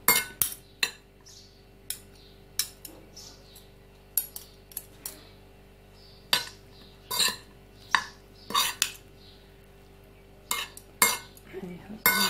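Metal spoon clinking and scraping against the dishes while stirring and scooping cracked-wheat salad: irregular sharp clinks with quiet gaps, sparser in the first half and coming faster near the end.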